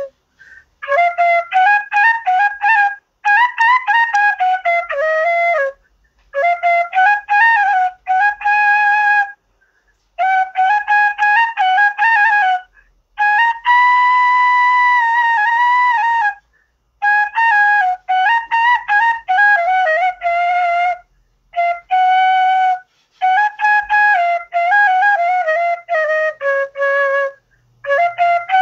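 Background music: a solo instrumental melody played in short phrases with brief silent breaks, and one long held note about halfway through.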